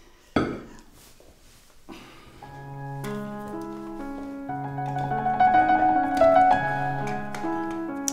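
A single sharp pop about half a second in, as a cork is pulled from a wine bottle, followed by a small click. Then piano music starts with slow, held notes and grows louder.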